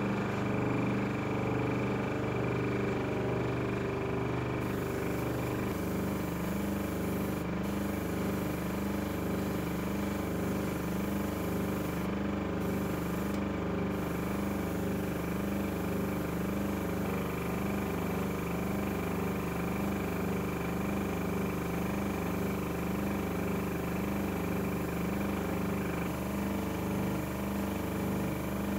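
Steady electric motor hum from spray-painting equipment, a low drone of several steady tones with a slow, regular throbbing beat that sets in a few seconds in, over a faint hiss.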